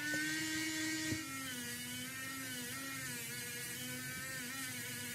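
Cordless rotary tool running a polishing wheel against a small toy-car wheel hub: a steady motor whine, a little higher in pitch for the first second, then settling lower and wavering slightly. A small tick about a second in.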